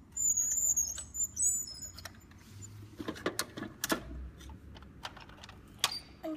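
Plastic toy forklift squeaking in several short, high-pitched squeaks during the first second and a half as it is pushed with its loaded pallet, then a few plastic clicks and knocks about three to four seconds in as the pallet is set into a plastic toy container.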